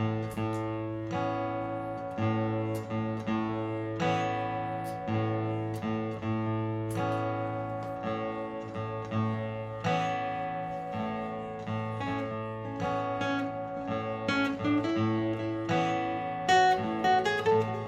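Martin GPCPA4 acoustic guitar playing a repeating strummed chord pattern, with single-note melody lines picked over it in the last few seconds.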